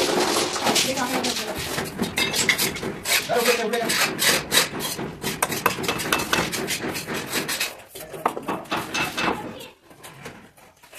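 Hand work at a window opening: rubbing and scraping against the wall and frame, then a run of quick, light hammer taps. The sound thins out to scattered clicks near the end.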